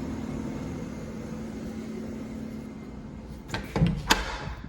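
2011 Goodman gas furnace's indoor blower running steadily in cooling mode, a steady hum. Near the end come two or three sharp knocks, like a door or panel being handled, and the hum then drops away.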